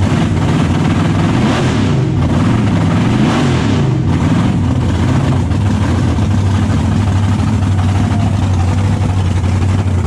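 Roots-supercharged V8 of a 1,700 hp burnout car running loudly at idle while warming up, its pitch wavering up and down for the first few seconds before settling steady.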